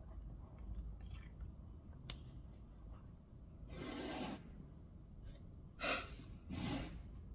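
Small handling sounds from woodworking at the bench: a few short scrapes and rustles, with a sharp clack about six seconds in as the loudest sound.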